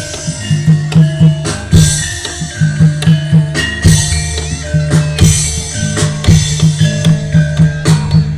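Percussion-driven Javanese gamelan-style music: drums beat a quick, steady rhythm over ringing struck metal tones, as played for a jaranan horse dance.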